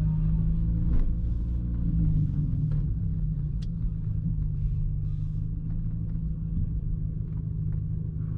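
Toyota Yaris engine running steadily at low revs, heard from inside the cabin as a low drone, with a few faint ticks.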